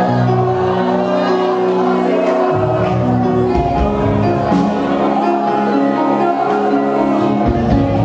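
Gospel worship music with group singing: long held chords with the bass moving to new notes every few seconds.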